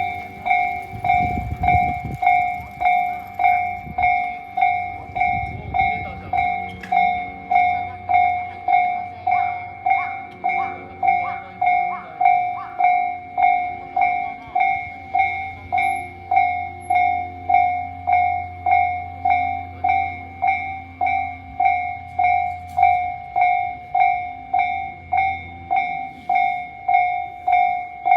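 Japanese level-crossing warning bell of the slow Tobu Tojo type, one bright tone struck over and over at an even pace of about one and a half strikes a second. A low rumble runs underneath through much of it.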